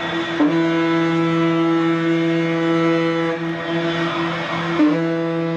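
A ship's horn sounding one long, steady low blast, its pitch dipping briefly twice, with a rushing noise swelling near the middle.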